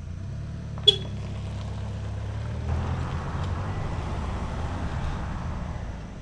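Road vehicles: a steady low engine hum, with a van passing close from about three seconds in, its tyre and engine noise swelling and then fading a couple of seconds later. A single sharp click about a second in.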